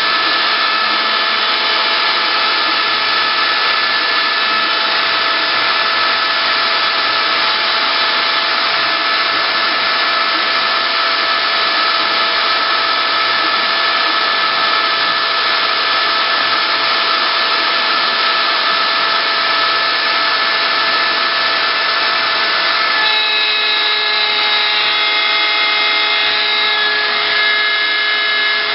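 CNC wood router running and carving wood: a steady, loud whine of several tones over a hiss. About three-quarters of the way through, the set of tones changes abruptly.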